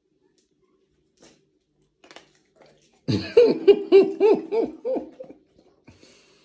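A woman laughing in a quick run of about eight short 'ha' sounds, starting about three seconds in and fading out near the end. A few faint clicks come before it.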